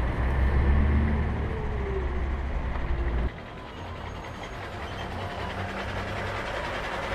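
A truck-like engine rumble with a slowly falling whine, cut off abruptly about three seconds in, then a quieter steady hum.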